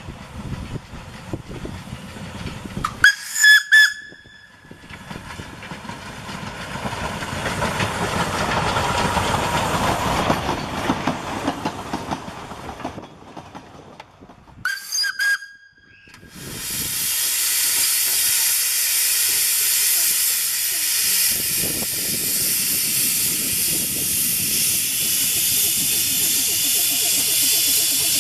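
Narrow-gauge steam locomotive whistle giving a few short toots about three seconds in, then the train running past, building and fading. Two more short whistle toots come about fifteen seconds in, followed by a loud, steady hiss of escaping steam.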